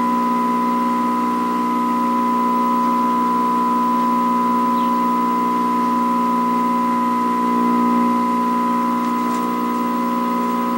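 Steady electrical hum and buzz from a 1960s Canadian Marconi portable vacuum-tube TV: several pitches held at once, a high tone the strongest over a lower hum, unchanging throughout.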